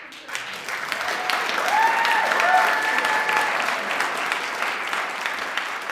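Audience applauding, starting suddenly and swelling over the first two seconds, then easing slowly. A cheer rises over the clapping about two seconds in.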